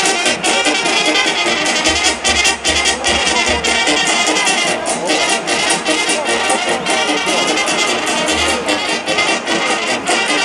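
Serbian brass band playing live through the stage's sound system: trumpets and other brass over a steady drum beat.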